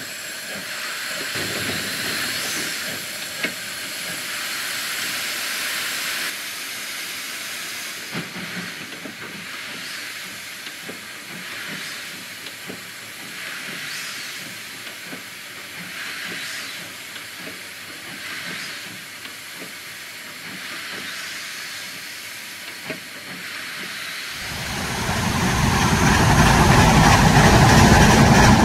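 Steam locomotive standing and hissing steam steadily, with surges of hiss about every two seconds. About 24 seconds in, a much louder, deep heavy engine sound rises and stays.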